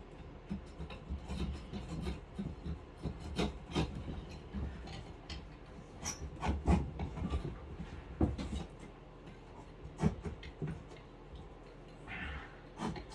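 Coping saw cutting wood by hand: irregular scraping strokes with scattered knocks against the board.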